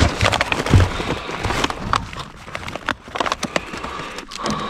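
Fruit, vegetables and their plastic packaging being rummaged through and moved around in a dumpster: crackling, rustling and knocking, with a heavier thump under a second in.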